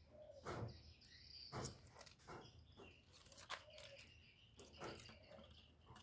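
Near silence: a spotted dove shifting about in its wire cage, with faint scattered taps roughly once a second and faint chirping behind.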